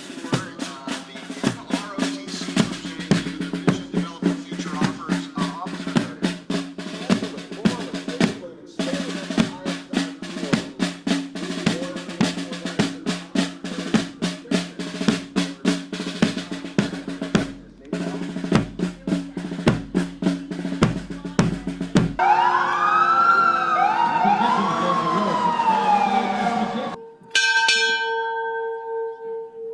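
Marching snare drums playing a fast cadence with rolls, over a steady low hum. The drums stop about 22 seconds in, giving way to wailing tones that rise and fall repeatedly. Near the end a bell rings twice.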